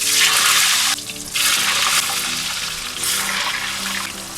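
Whole potatoes dropped into smoking-hot sunflower oil in a kazan, sizzling loudly. The hiss starts suddenly, dips briefly about a second in, then surges again and carries on.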